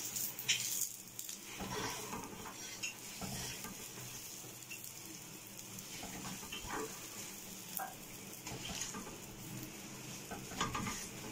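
A paratha frying on a hot iron griddle pan, with a steady faint sizzle. A steel spatula presses it and scrapes and taps the pan now and then, and it is turned over near the end.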